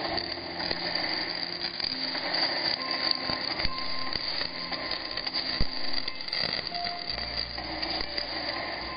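Homemade 24-volt electric fish shocker arcing through its wire-mesh electrode onto wet concrete: a dense, continuous crackle of sparks. A low hum joins near the end.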